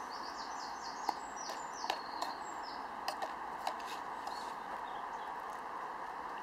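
A metal spoon stirs porridge in a stainless steel camping mug, giving about six sharp clicks and scrapes against the pot in the first four seconds or so. Over the first two seconds a bird sings a quick run of high, falling notes. A steady background noise runs underneath.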